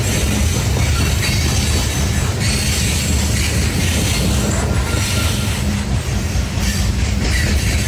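Loaded coal train rolling past, its hopper cars' wheels rumbling steadily on the rails, with faint high wheel squeals now and then.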